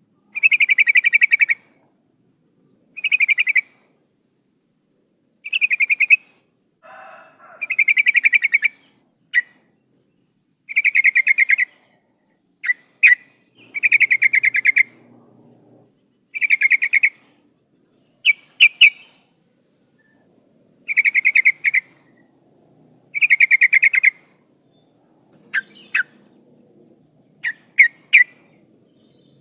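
Yellow-vented bulbul (trucukan) calling: about ten rapid, buzzy, rattling phrases of roughly a second each, repeated every two to three seconds, with short sharp notes in between. The recording is presented as a female calling for a male.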